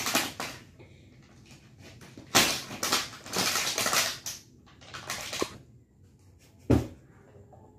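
Plastic toys and packaging being handled on a bed: bursts of rustling and clattering, then a single sharp thump near the end.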